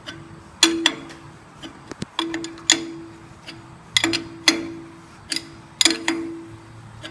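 Steel combination wrench clinking on a nut on a threaded installer rod as it is worked round in short strokes, pressing a harmonic balancer onto a crankshaft snout. Each stroke gives a pair of sharp metallic clinks that ring briefly, repeating about every second and a half to two seconds.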